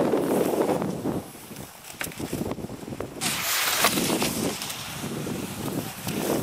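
Wind rumbling on the microphone. About three seconds in comes a brief hiss, and a few sharp clicks follow, as cross-country skiers double pole close past on hard-packed snow.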